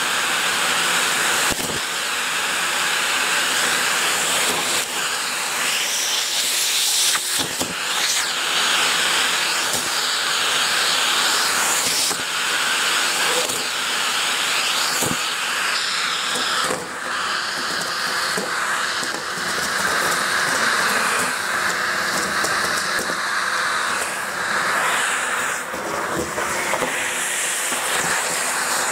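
Numatic Henry cylinder vacuum cleaner running steadily, sucking dry leaves off a carpet, with scattered clicks and crackles as leaves are pulled into the nozzle.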